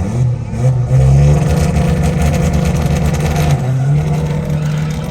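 Loud car engine running hard, holding a steady note for a couple of seconds before easing somewhat near the end.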